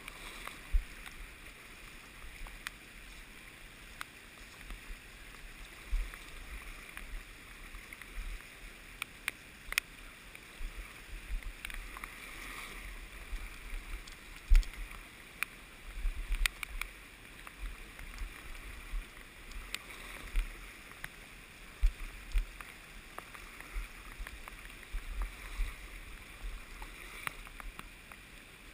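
Steady rushing of a river flowing over riffles, heard close from midstream, with irregular low rumbling bumps and scattered sharp taps on the camera microphone.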